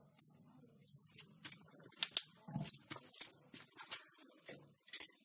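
Swedish fire log burning under a pan of water: irregular sharp crackles and pops from the wood over a faint low hum.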